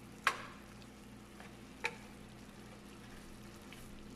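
Pork frying with a low sizzle in a nonstick pan while a wooden spatula stirs it. The spatula knocks sharply against the pan twice, just after the start and again a little under two seconds in.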